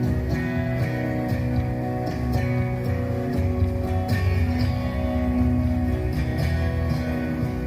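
Instrumental music with strummed guitar and a steady beat, no singing.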